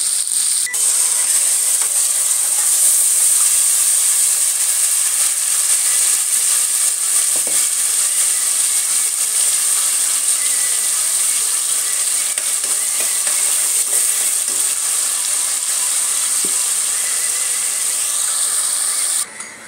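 Hot oil sizzling steadily as food fries in a pan and then in a cooking pot; the sizzle cuts off suddenly near the end.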